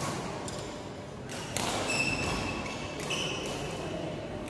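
Ambience of an indoor badminton hall between rallies, with two short high squeaks, about two and three seconds in.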